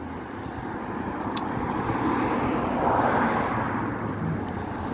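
A motor vehicle passing on the street, its tyre and engine noise swelling to a peak about three seconds in and then fading, over steady street traffic.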